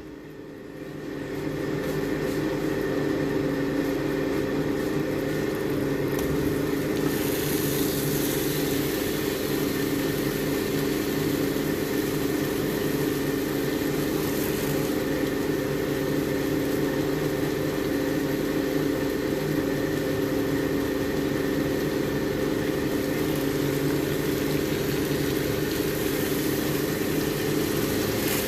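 A steady motor hum made of several low tones, with an even hiss that grows stronger about seven seconds in.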